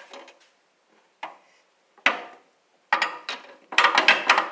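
Metal hand tools, sockets and extensions, knocking and clinking as they are picked up and handled: single sharp clanks about a second apart, then a quick rattling clatter near the end.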